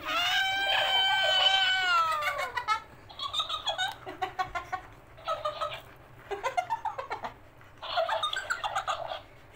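Talking cactus toy giving out high-pitched, chipmunk-like electronic sound: one long held note for the first two and a half seconds or so, dipping at its end, then several choppy, rapidly broken passages.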